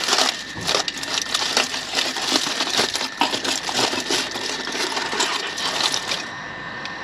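Aluminium foil crinkling and crackling as metal tongs pull it open around a foil-wrapped jacket potato, with many sharp clicks mixed in. It stops about six seconds in.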